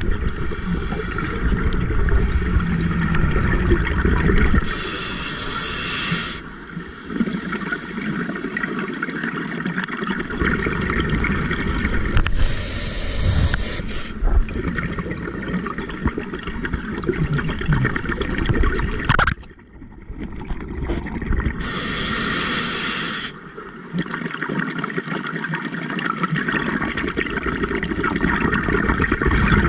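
Scuba diver breathing through a regulator underwater: a hiss from the regulator on each of three inhales, about eight or nine seconds apart, with exhaled bubbles between the breaths.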